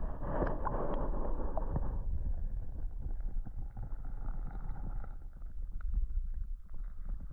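Wind buffeting the microphone as a steady low rumble, over the even rush of fast-flowing creek water. The water noise is strongest in the first two seconds and eases off after about five.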